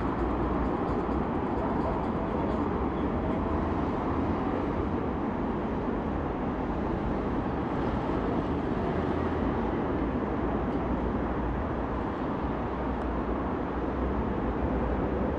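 Steady rumbling outdoor noise, heaviest in the low end, with no distinct events.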